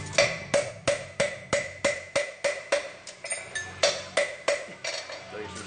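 Farrier's hammer striking a steel horseshoe on an anvil in a steady rhythm of about three blows a second, each blow ringing; the blows get lighter near the end.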